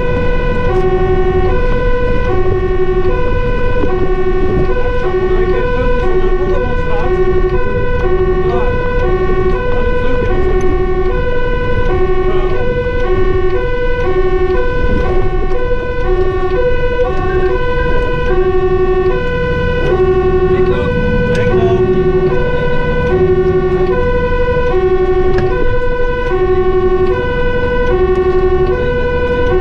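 Fire truck's two-tone siren sounding continuously, switching back and forth between a lower and a higher note. It is heard from inside the cab over the truck's engine rumble.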